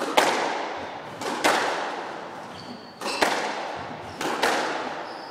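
Squash rally: four pairs of sharp cracks, each a racket strike on the ball followed a fraction of a second later by the ball smacking the wall, with the hits ringing on in the enclosed court. A brief high squeak comes near the middle.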